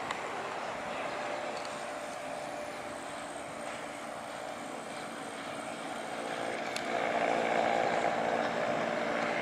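Twin-turboprop airliner, a Dash 8 Q400, climbing away after takeoff: a steady drone of engines and propellers with a humming tone, growing louder about seven seconds in.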